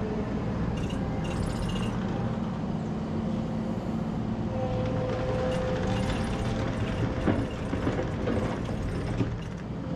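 Compact track loader's engine running steadily under load while its four-way clamshell bucket scrapes debris out of a ditch. A hydraulic whine joins in for a few seconds midway, followed by a few light knocks.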